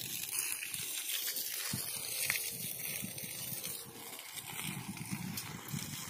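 Water spraying from a hose onto concrete, a steady hiss, with a low uneven rumble underneath.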